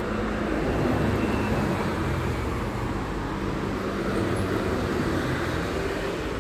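Steady city street traffic noise, with a low engine hum.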